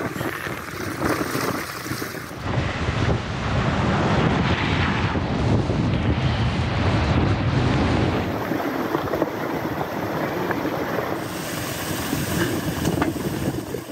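Rushing floodwater in a swollen river, a steady loud wash of water with wind buffeting the microphone. The sound changes abruptly about two and a half seconds in and again about eight seconds in.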